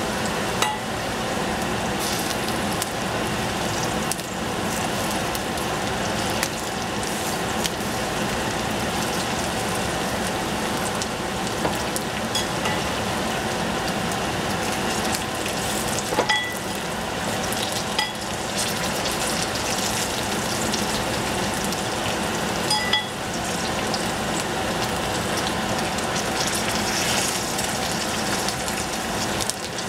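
Carrots, onion and miso sauce sizzling steadily in a stainless steel saucepan over a gas flame, with a few light clicks that ring briefly as pieces of cauliflower are broken into the pan.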